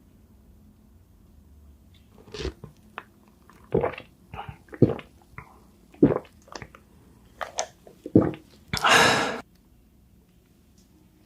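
Close-miked eating sounds of a person eating spicy seafood: after a quiet start, a string of short, wet chewing and smacking sounds, then one longer, louder noisy sound lasting under a second near the end.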